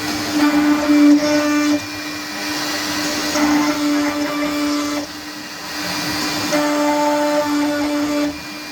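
CNC router cutting an MDF sheet: a steady motor whine over the noise of the cut, its tone swelling and fading every second or two as the machine moves.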